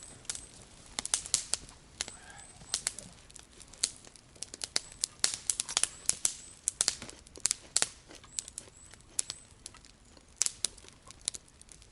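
Campfire crackling and popping: irregular sharp snaps from the burning wood, some in quick clusters. The wood is damp.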